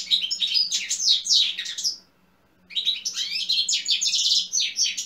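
European goldfinch song: a rapid twitter of quick, high notes. It breaks off briefly about two seconds in, then starts again.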